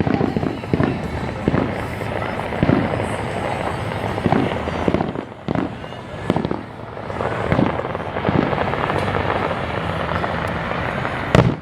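Fireworks display going off: a dense run of bangs over continuous crackling, easing off briefly about halfway through, with a sharp bang near the end.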